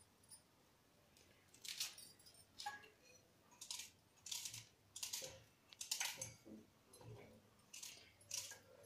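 Red onion being cut by hand with a small knife, the pieces dropping into a steel mixer-grinder jar. A faint run of crisp cuts and light clinks, about one or two a second, starting a couple of seconds in.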